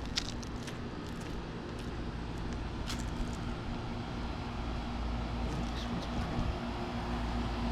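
Outdoor air-conditioner condenser unit running: a steady low hum with a faint even tone, growing slightly louder in the second half, with a few light ticks.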